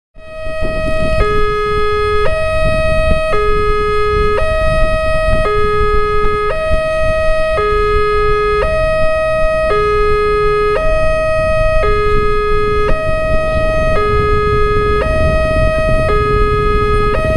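Electronic railway level-crossing warning alarm sounding to signal an approaching train: a two-tone signal alternating high and low, each tone about a second long, over a steady higher tone and low background noise.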